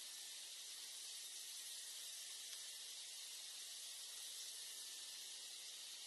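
A steady, even, high-pitched hiss with no bird calls or other distinct sounds standing out.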